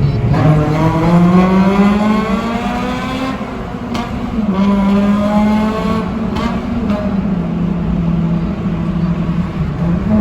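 Exhaust of a Honda Civic Type R Euro FN2's 2.0-litre four-cylinder engine through a freshly fitted aftermarket rear muffler section, accelerating hard in a tunnel. The pitch climbs steadily for about three seconds, drops briefly, then rises again and holds high.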